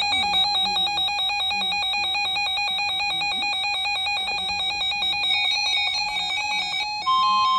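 Electronic emergency-alert alarm tone, warbling rapidly and evenly between pitches. About seven seconds in it switches to a louder alarm with a steady high tone.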